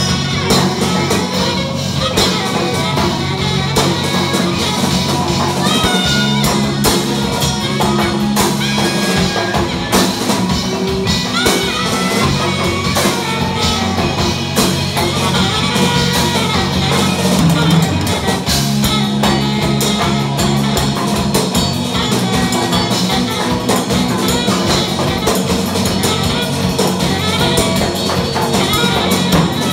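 Live rock band playing loudly: drum kit and electric guitars keeping a steady beat.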